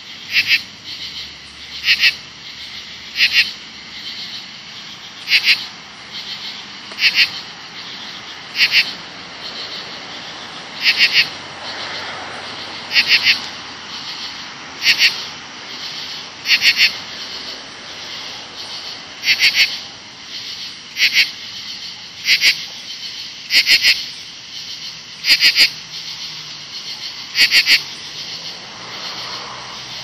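Very loud night chorus of calling insects: a raspy call of two or three quick pulses repeats about every one and a half to two seconds over a steady high-pitched hum.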